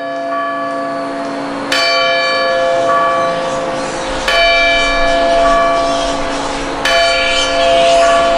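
Large church bell tolling slowly, struck three times about two and a half seconds apart, each stroke ringing on under the next.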